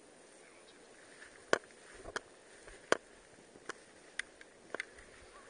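A string of about eight sharp clicks and knocks at irregular intervals, the loudest near one and a half and three seconds in.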